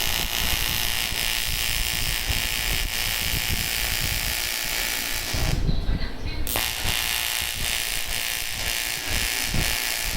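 TIG welding arc on aluminium buzzing steadily. It cuts out about five and a half seconds in for about a second, then strikes again.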